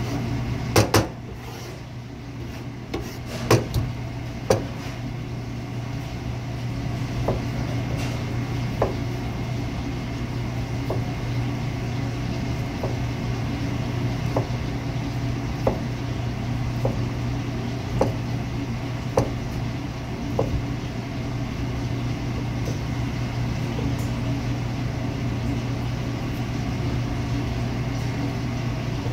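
Chef's knife slicing through a pork loin, the blade tapping the cutting board about once every second and a half, after a few louder knocks of knife and meat on the board near the start. A steady low hum runs underneath.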